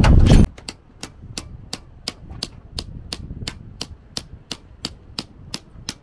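Clock-like ticking: sharp, evenly spaced ticks, about three a second, starting right after a sudden cut about half a second in.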